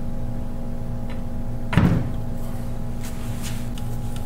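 Electric motor of a Western snowplow hydraulic pump being set down onto the pump's metal base casting: one heavy thump a little under two seconds in, over a steady low hum.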